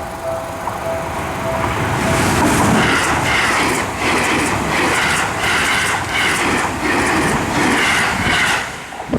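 Level-crossing warning bell ringing, then a Seibu Shinjuku Line train passing over the crossing: loud, rhythmic clatter of its wheels from about two seconds in, cutting off sharply near the end.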